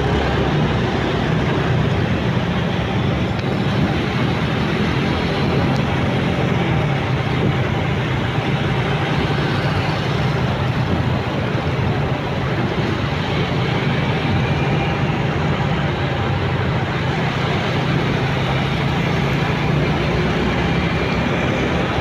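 Motorcycle riding through city traffic: the bike's engine running steadily under wind rush, with the surrounding cars and motorcycles.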